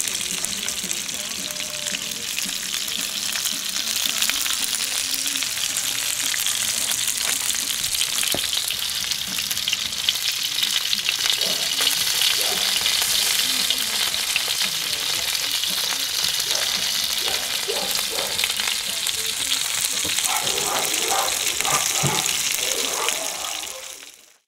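Sausages sizzling steadily in a non-stick frying pan on a Campingaz Camp Bistro portable gas stove. The sizzle fades out just before the end.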